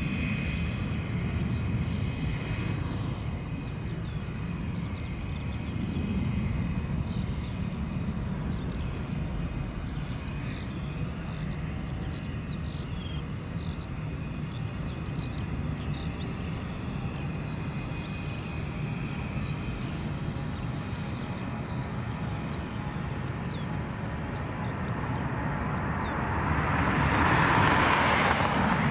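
Low, steady rumble of a jet airliner taking off in the distance, with faint high chirps in the middle. Near the end, jet engine noise swells and grows louder as an Airbus A330 rolls past much closer.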